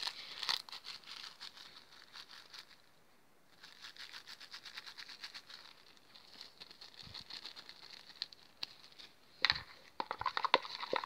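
Clear plastic bag of glitter crinkling faintly as it is handled and shaken out over a plastic bowl, with many small irregular crackles. A louder knock comes near the end.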